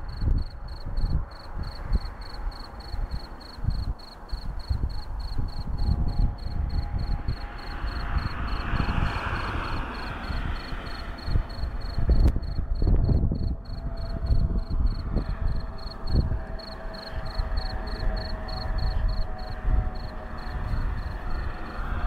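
A cricket chirping steadily, an evenly paced run of high chirps several times a second. Heavy low wind rumble on the microphone runs throughout, and a car passes about ten seconds in.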